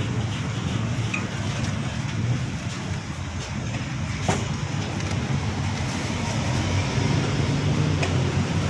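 Steady street traffic noise from passing cars and motorbikes, with one sharp click a little over four seconds in.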